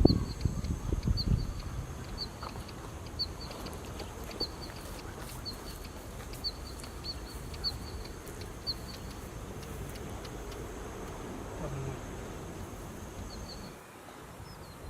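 A northern wheatear giving short high call notes over and over, about two a second, that stop after about nine seconds and return briefly near the end. A low wind rumble is loudest at the very start.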